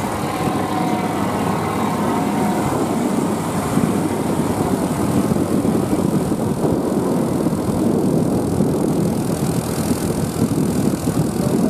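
Steady engine and road noise of heavy trucks on the move, heard at close range from a vehicle driving alongside them.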